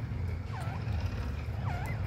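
Caged grey francolin calling: a few short whistled notes, each dipping and then rising in pitch, over a steady low rumble.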